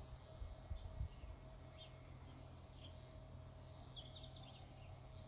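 Faint rural outdoor ambience: scattered short, high bird chirps over a low rumble, with a faint steady hum underneath.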